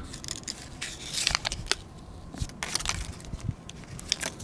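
Paper backing peeling off putty sealant tape as the tape is wrapped and pressed around a water inlet flange: irregular crackling and tearing with small clicks.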